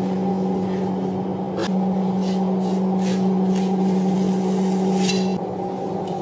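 A steady mechanical hum that drops in level about five seconds in, with several short hissing scrapes over it.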